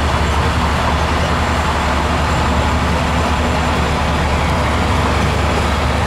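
Shantui DH17 bulldozer's diesel engine running steadily under load as the blade pushes a heap of soil.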